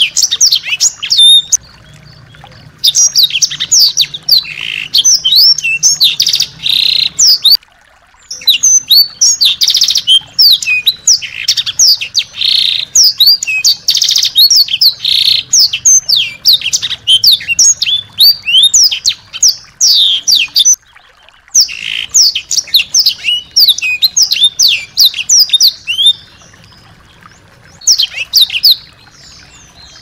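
A small songbird singing a fast, chattering song of quick, high chirps and sweeping notes, in long bouts broken by short pauses.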